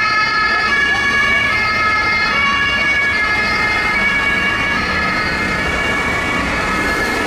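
German two-tone emergency sirens (Martinshorn) on fire brigade vehicles, alternating between a high and a low note about once a second, over the low rumble of traffic.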